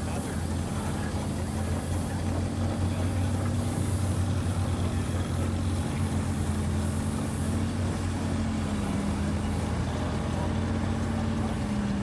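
Russell steam traction engine driving slowly along a dirt track, its machinery running with a steady low drone.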